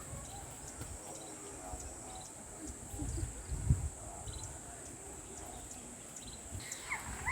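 A steady high-pitched insect chorus, with a few faint low thumps about halfway through.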